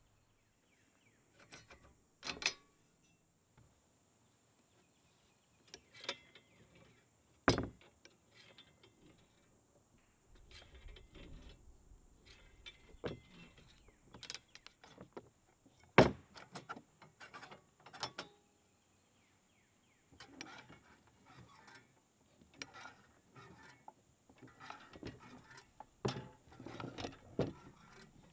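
Old cast-iron and steel Manley mechanical floor jack being handled on a plywood table: scattered single clanks and knocks of metal, the loudest about halfway through, then a busier stretch of rattling and clicking of its loose, rusty parts near the end.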